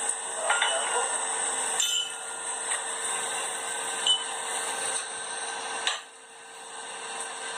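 Scattered clinks and knocks of steel blacksmithing tools and stock, about five in all, a few with a short ringing tone. Under them runs a steady hum and hiss that drops away about six seconds in.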